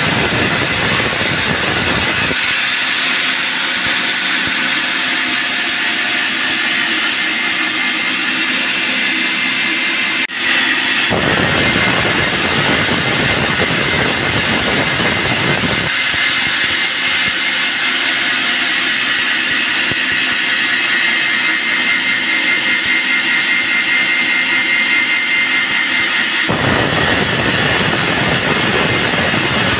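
Bandsaw sawmill running loud and steady. A deeper rumble drops away a couple of seconds in, returns about eleven seconds in, drops away again near sixteen seconds, and comes back near the end.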